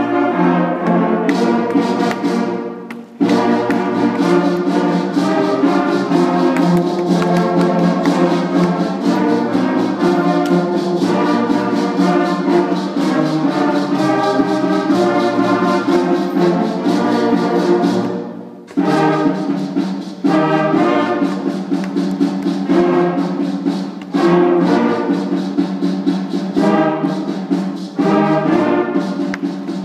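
Sixth-grade school concert band playing a piece together, flutes and brass holding sustained chords. The music breaks off briefly between phrases about three seconds in and again a little past halfway.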